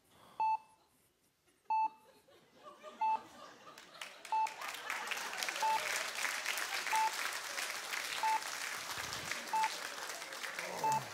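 Hospital patient-monitor sound effect beeping steadily, one short beep about every 1.3 seconds, nine beeps in all. From about three seconds in, audience applause builds up and then dies away near the end.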